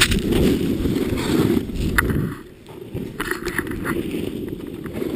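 Snowboard riding through deep powder: a steady rumble of the board and spraying snow, with wind buffeting the microphone. Sharp knocks come at the start and about two seconds in, and it eases briefly just after.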